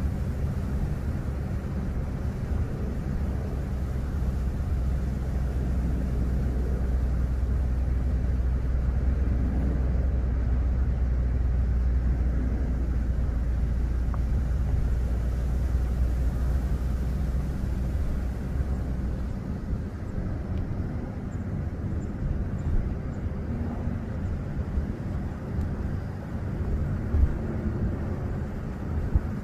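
Steady road and engine rumble heard from inside a moving car; the deep rumble drops away about two-thirds of the way through.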